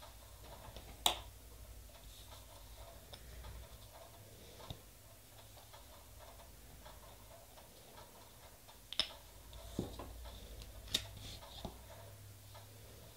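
Sparse, irregular light clicks and taps from handling small nail-stamping tools (stamper, plate and polish bottles), about six in all, the sharpest about a second in and several close together near the end. A faint low hum runs underneath.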